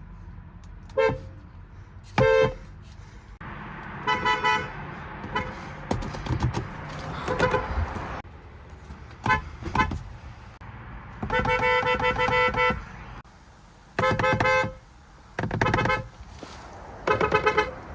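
Car horns of Korean cars honking in a string of separate clips: short single and double toots, a quick run of beeps, and one longer blast of about a second and a half about two-thirds of the way through.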